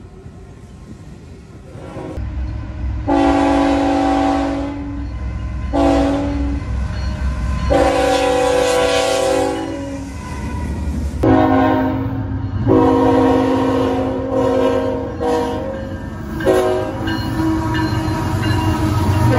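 GE diesel freight locomotives passing, their engines rumbling low, while sounding chord-like air horns in a series of long and short blasts, one sequence and then a second one.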